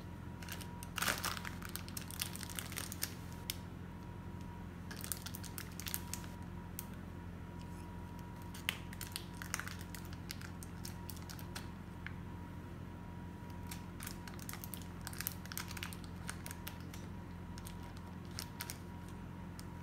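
Butter wrapper crinkling in irregular bursts as pieces of butter are unwrapped and broken off.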